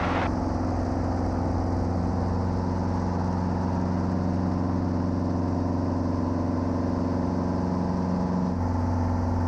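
Safari 400 helicopter's Titan 390 four-cylinder piston engine and main rotor running steadily, a constant low drone heard from the cockpit, its tone shifting slightly near the end.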